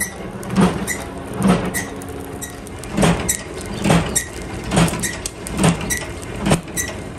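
A rhythmic mechanical sound repeating a little faster than once a second: each beat a dull thump with a rush of noise, and a short high squeak between the beats.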